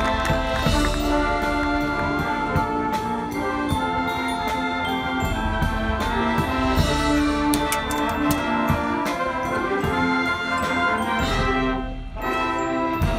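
Marching band playing: brass horn line holding full chords over drums and front-ensemble mallet and timpani percussion, dropping back briefly near the end.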